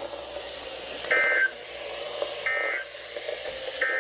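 Emergency Alert System end-of-message data bursts: three short, identical digital warbling beeps, evenly spaced about a second and a half apart. They mark the close of the severe thunderstorm warning broadcast.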